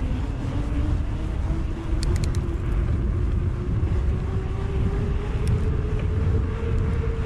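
Wind buffeting the microphone over the hum of mountain bike tyres rolling, the hum rising in pitch over the first few seconds as the bike picks up speed, then holding steady. A few quick clicks come about two seconds in.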